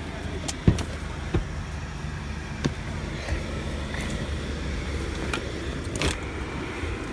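A car's engine idling with a steady low hum, with a few sharp knocks and clicks from handling inside the car, the loudest under a second in.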